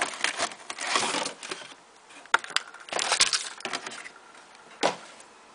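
Clear plastic packaging crinkling and rustling in several short bursts as items are handled and unpacked, with a couple of sharp clicks a little past the middle.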